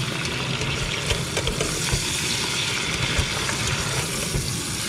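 Raw duck pieces sizzling as they stir-fry in hot black sesame oil with ginger in a metal pot: a steady dense sizzle with a few sharp clicks as the pieces are stirred.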